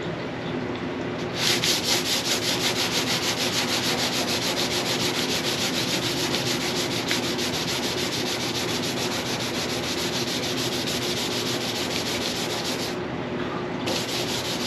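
Hand sanding with a sanding block and 320-grit paper on the primer and body-filler spots of a steel car trunk lid: a dense, rasping hiss of quick straight back-and-forth strokes that starts about a second and a half in, stops briefly near the end and starts again.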